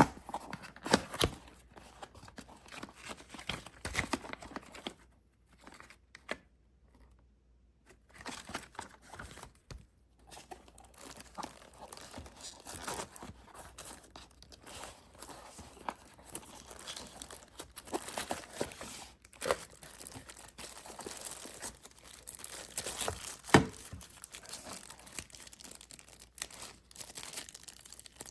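Crinkling and tearing handling noise with scattered sharp taps and knocks, going quiet for a few seconds around five to ten seconds in.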